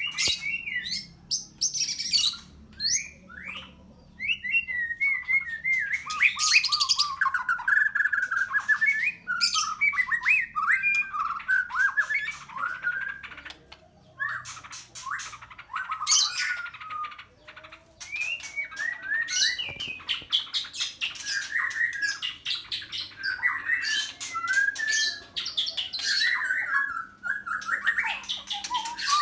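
White-rumped shama (murai batu) singing a long, varied song of quick whistled phrases mixed with harsh, chattering notes, broken by a few short pauses.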